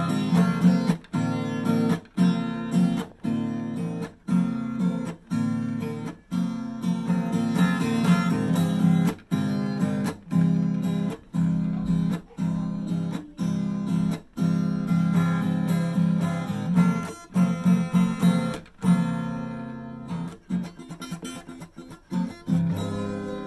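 Acoustic guitar strummed in a steady rhythm, the chords briefly cut off about once a second. The strumming gets lighter and quieter near the end.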